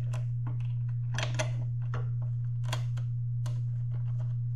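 Irregular small metallic clicks and taps from a bolt and washer being fitted by hand into a steel pannier bracket, over a steady low hum.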